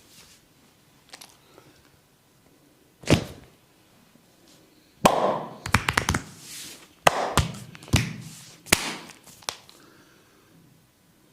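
Barber's hands slapping and tapping the body during a massage: one sharp slap about three seconds in, then a quick run of about ten more from about five to nine seconds.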